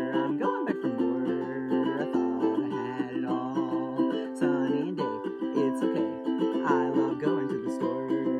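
Instrumental passage of a song played on a plucked string instrument, with sustained chords changing every second or two.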